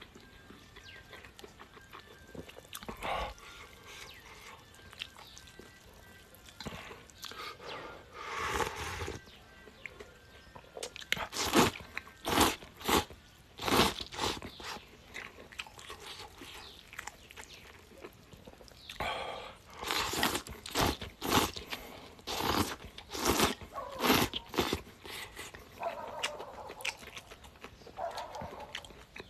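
A person eating noodles with pickled cabbage: irregular slurps and chewing, in clusters of short noisy bursts with quieter stretches between.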